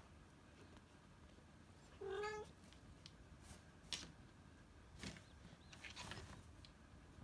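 A cat meows once, a short call about two seconds in. Then come a few soft knocks and rustles from the fabric pop-up cat tent as the cat inside shifts about in it.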